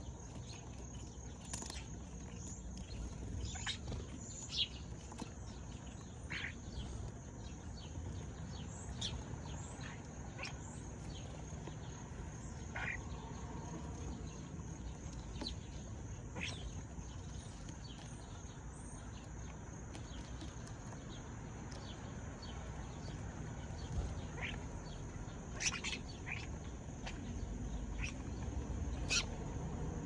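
Sparrows giving short, scattered chirps at irregular intervals, a few louder ones near the end, over a steady high insect trill.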